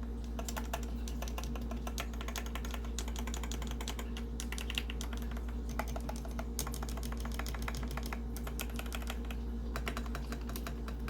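Darkflash GD100 mechanical keyboard with yellow switches being typed on: a continuous run of rapid key clacks.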